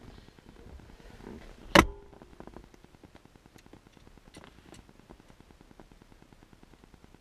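One sharp, loud knock about two seconds in, then a few faint scattered clicks: handling noises inside a car while interior lights and trim are being worked on.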